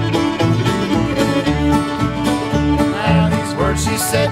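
Bluegrass string band playing an instrumental break live: a bowed fiddle melody over mandolin and guitar, with an upright bass keeping a steady beat.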